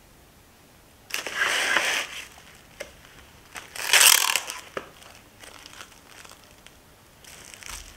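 Plastic cling wrap pulled from its box in noisy bursts, the loudest about four seconds in, then crinkled as it is pressed down over a glass bowl near the end.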